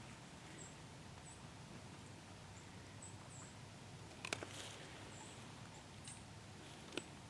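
Faint, short high-pitched chirps from a small animal, coming every second or so against a quiet woodland background. A few sharp clicks cut in, the loudest about four seconds in and another near the end.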